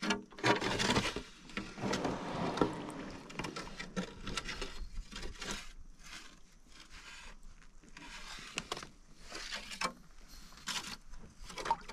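Kayak paddle strokes: the paddle blades dipping and pulling through the creek water, with water trickling off them between strokes, and a few sharp knocks.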